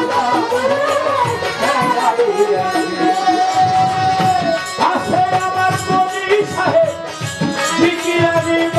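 Live Baul pala gaan folk music: a held, wavering melody line over quick hand-drum strokes.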